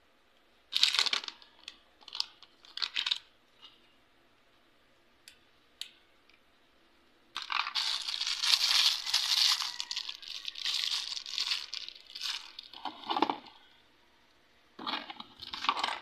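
Plastic packaging crinkling and rustling in bursts as wrapped items are handled, with a long stretch of steady crinkling from about seven to twelve seconds in.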